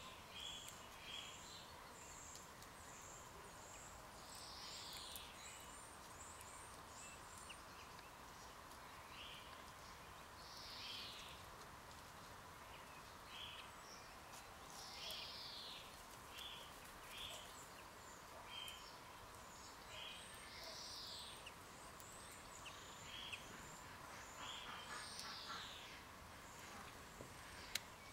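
Small birds calling faintly. Short high chirps are scattered throughout, and a longer call that falls in pitch comes every few seconds, over a faint steady hum.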